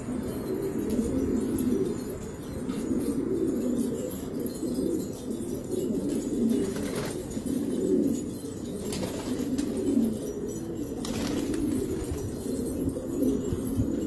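Several domestic pigeons cooing at once in a continuous, overlapping low burble, with two short rustling sounds about seven and eleven seconds in.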